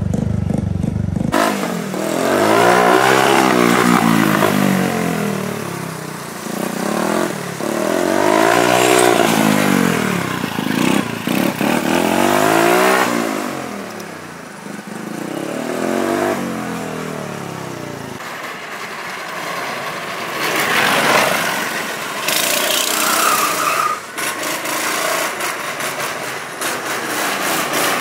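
Go-kart engine running while the kart drives, revving up and easing off several times with its pitch climbing and falling, then running more evenly in the second half.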